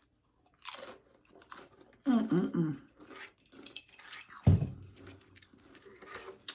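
Loaded nachos being eaten close to the microphone: crisp tortilla chips crunching and chewing. A short hummed voice comes about two seconds in, and a sharp thump, the loudest sound, comes a little past halfway.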